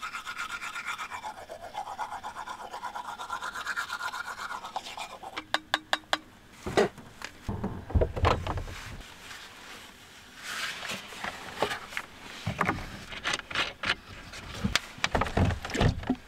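Manual toothbrush scrubbing teeth in quick, even strokes for about five seconds. Then a few clicks, some heavy thumps and scattered knocks and rustling as she moves around in the cramped space.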